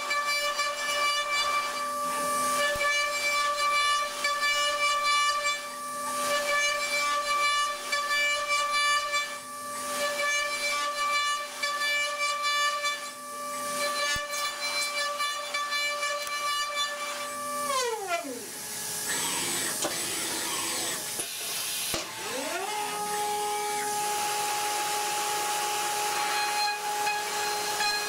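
Steady high-pitched machine whine over a hiss, like a motor or spindle running at constant speed. About two-thirds of the way in it winds down sharply in pitch, then a few seconds later winds back up and holds steady at a lower pitch.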